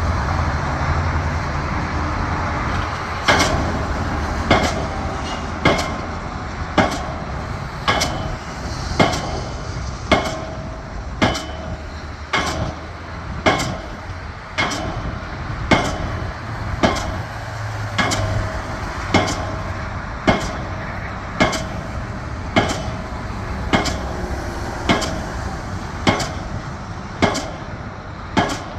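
Pile hammer driving a steel H-pile: a steady run of sharp metallic blows, about one every second, each with a short ring from the steel, over the steady drone of heavy machinery. The blows start about three seconds in.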